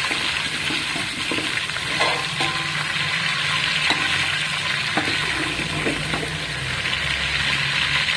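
Green chillies, curry leaves, cumin and mustard seeds sizzling in hot oil in an aluminium pot, with a steady hiss. A slotted metal spoon stirs them, knocking against the pot a few times.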